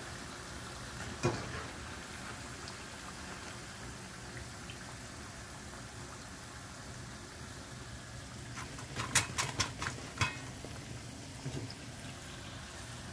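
Besan pakoras deep-frying in hot oil, a steady sizzle and bubbling. A wire spider skimmer clinks on metal once about a second in, then gives a quick run of clinks and knocks around nine to ten seconds in as the fried pakoras are lifted out.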